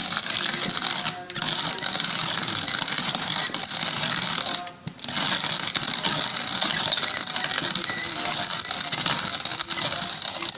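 Hand-cranked wooden-box coffee grinder with a metal bowl grinding roasted coffee beans: a steady mechanical grinding as the crank turns, broken twice by short pauses, about a second in and near five seconds.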